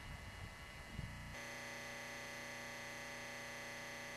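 Steady electrical mains hum, buzzy with many overtones, that cuts in abruptly about a second and a half in, after faint room noise and a soft thump.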